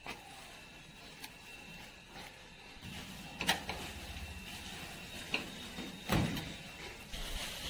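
Moringa (drumstick tree) stems snapping and leaves rustling as sprigs are picked by hand, with several sharp snaps, the strongest about three and a half and six seconds in.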